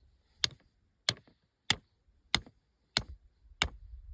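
Hammer driving a stake into the ground with six steady blows, about one every two-thirds of a second, each strike giving a short high ring.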